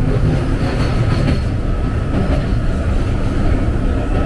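Boston MBTA Red Line subway train running through the tunnel: a loud, steady rumble of wheels and running gear with a thin steady whine above it, and a brief faint higher squeal about a second in.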